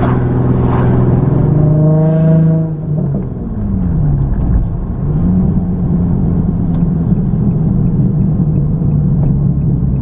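Nissan 350Z's 3.5-litre VQ35DE V6 heard from inside the cabin, pulling through a gear change on the new 6-speed manual: the revs climb for the first couple of seconds, drop away about three seconds in as it shifts, then pick up and settle into a steady pull.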